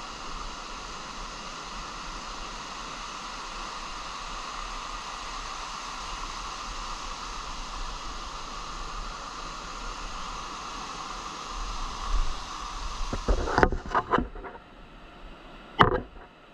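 Steady wash of surf breaking and running up a sandy beach, with wind on the microphone. Near the end come a few sharp knocks and rustles of handling close to the microphone, as a hooked fish is brought up through the wash.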